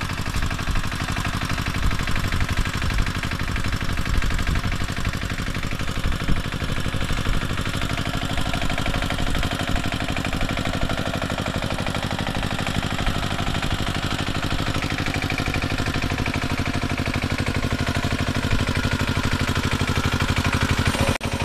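Kamco power tiller's single-cylinder diesel engine running steadily under load with an even, rapid beat, driving cage wheels through a flooded paddy field.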